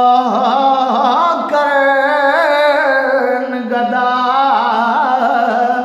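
A man singing Punjabi Sufi verse unaccompanied, drawing out one long melismatic line with wavering ornaments on the held vowel.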